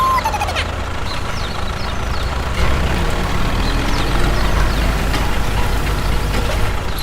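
A motor running steadily with a low hum and no change in speed, with a few faint short chirps above it.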